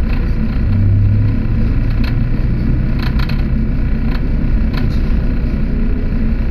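Electric commuter train running, heard from inside the passenger car: a steady rumble with a low hum that swells about a second in, and a few sharp clicks along the way.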